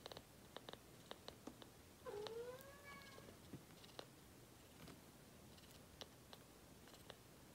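Newborn kitten suckling from a feeding bottle: faint, wet clicks of sucking a few times a second. About two seconds in, it gives one drawn-out mew that dips and then rises slightly.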